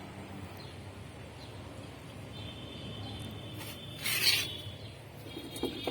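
A high, steady animal call, coming in about two seconds in and again near the end, over steady outdoor background noise, with one brief loud rush of noise about four seconds in.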